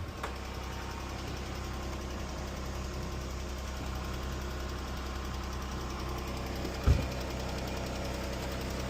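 Jeep engine idling with a tick from the top end, which the mechanic diagnoses as failing rocker arms and lifters. A single thump about seven seconds in.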